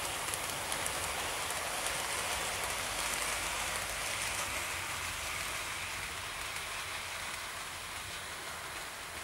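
Hornby 00 gauge model train, a Schools class steam locomotive hauling Pullman coaches, running along the track at express speed: a steady hiss of wheels rolling on the rails that slowly fades as the train draws away.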